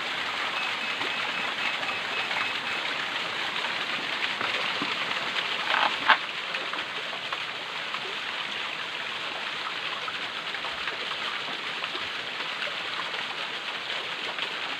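Steady rush of flowing stream water. There is one sharp knock about six seconds in, and a faint high tone for about two seconds near the start.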